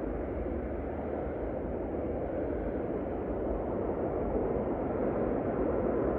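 Distant jet noise from an F/A-18 fighter on its landing approach: a steady rumble that slowly grows louder as the jet nears.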